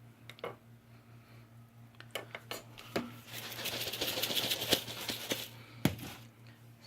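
Dried seasoning being shaken out of a spice container, giving a dense rapid rattle for about two seconds in the middle, framed by a few light clicks of handling and one sharp knock near the end.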